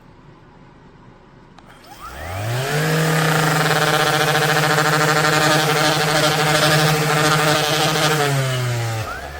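Electric random orbital sander switched on, its motor spinning up quickly to a steady hum. It runs for about five and a half seconds, then winds down and stops near the end.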